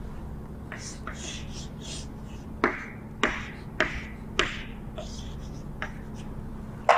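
Chalk on a blackboard: a few scratchy strokes in the first couple of seconds, then four sharp taps about half a second apart as the chalk strikes the board, over a low steady hum.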